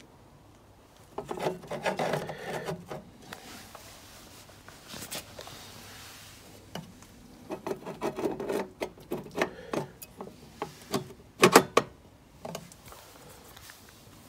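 Stepper motor drive modules being slid and shifted by hand on the metal base plate of a controller box: scraping and rubbing with clicks, in two bouts, and a sharp double knock about eleven and a half seconds in.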